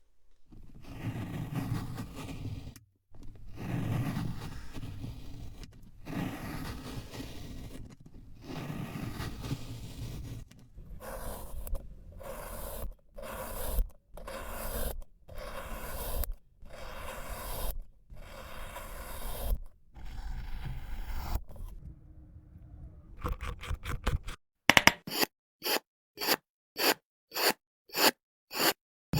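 Kinetic sand being scraped and cut: gritty scraping in short stretches broken by abrupt cuts, then near the end a quick run of crisp slicing strokes at about two a second.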